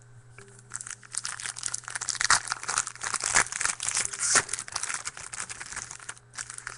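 Trading card pack wrapper being torn open and crinkled by hand, a dense run of rapid crackling that starts about a second in and stops shortly before the end.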